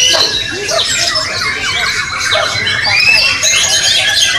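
Several white-rumped shamas (murai batu) singing at once in contest, a dense tangle of overlapping rising and falling whistles and chirps.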